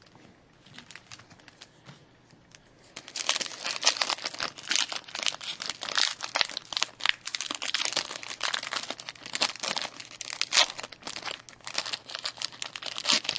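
Foil trading-card pack wrapper being torn open and crinkled in the hands: a few faint rustles at first, then steady crackling from about three seconds in.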